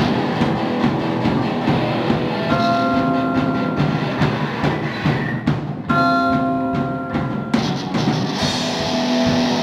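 Live rock band playing: a drum kit keeps going while sustained bell-like tones ring out about every three seconds.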